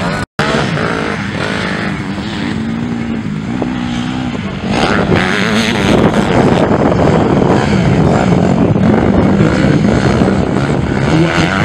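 Motocross dirt bike engines running on the track, their pitch rising and falling with the throttle. The sound drops out for an instant just after the start and is louder from about five seconds in.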